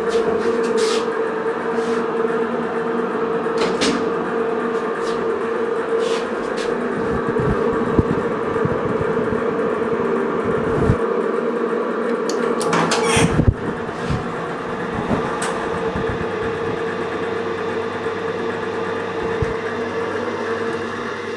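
Elevator car running, heard from inside the car: a steady electric hum with a fainter mix of steady tones and a few light clicks. About thirteen seconds in there is a short rush of noise, and the car's sliding doors open before the end.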